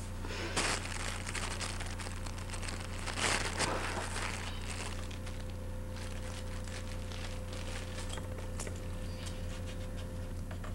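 Rustling and scattered clicks and knocks over a steady low hum, loudest about half a second in and again three to four seconds in.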